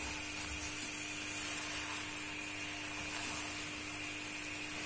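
Spinach, potato and chicken curry sizzling gently in a karahi over the flame while a wooden spoon stirs it: a steady low hiss.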